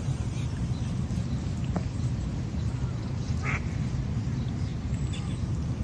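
A mallard duck quacks once, briefly, about three and a half seconds in, over a steady low rumble.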